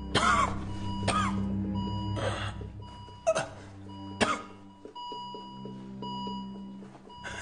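Hospital heart monitor beeping over and over, while a gravely ill man lets out five strained gasps or coughs in the first four seconds or so.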